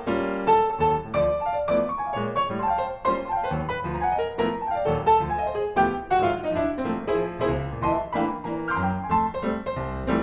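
Piano music: a flowing melody of quick, separately struck notes over sustained lower notes.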